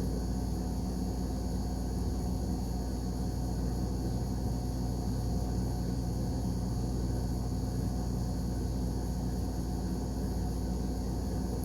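Steady background hum and hiss of room noise, unchanging throughout, with no distinct sounds.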